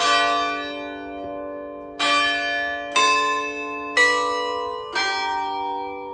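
Stationary church bells in a bell tower, struck by their clappers: five strikes at differing pitches, one at the start and then four about a second apart from two seconds in, each ringing on and fading out.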